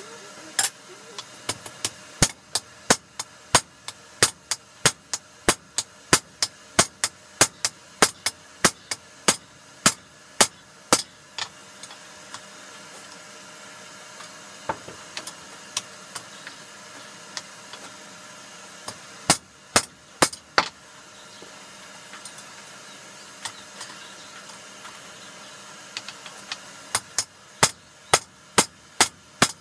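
Hand hammer striking a red-hot steel hammerhead on an anvil as it is forged into shape: a long run of sharp blows at about two a second, then a pause broken by a few scattered strikes, then another run near the end.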